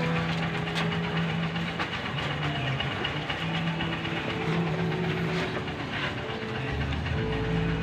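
Electric arc welding: a steady crackling hiss from the arc, with a hum from the welding machine underneath.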